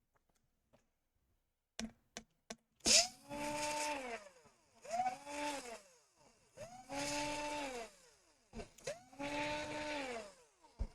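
Small handheld electric tool motor run in four short bursts, each spinning up, holding a steady whine for about a second and winding down, after a few light clicks.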